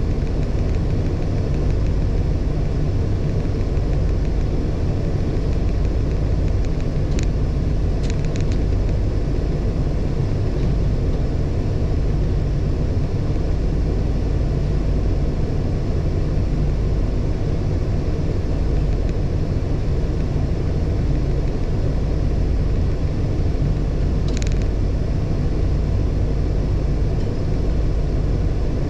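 Truck engine idling steadily, a low rumble heard from inside the cab. A few brief high clinks come through about seven, eight and twenty-four seconds in.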